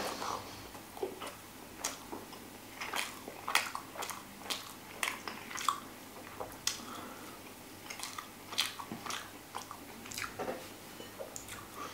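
A person chewing a mouthful of pizza, with irregular short clicks and smacks from the mouth.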